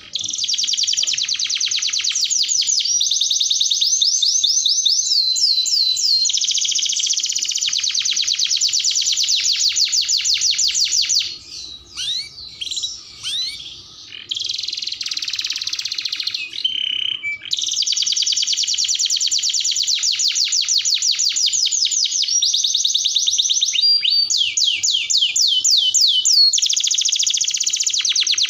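Domestic canary singing a long, fast trilled song of rapidly repeated high notes. About halfway through it breaks into a few seconds of scattered single chirps, then the rapid trills resume.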